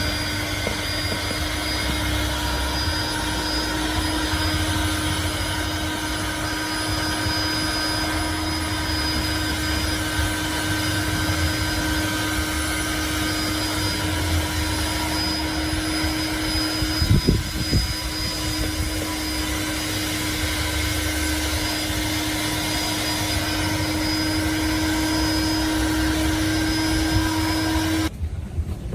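Steady whirring of a running motor with a constant hum, with a brief clatter about seventeen seconds in. It cuts off suddenly near the end.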